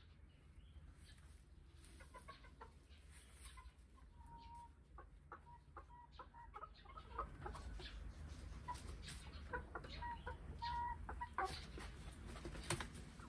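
Hens clucking softly in short, low calls, with one longer held note about four seconds in; the clucking grows busier and louder over the second half, mixed with scattered clicks.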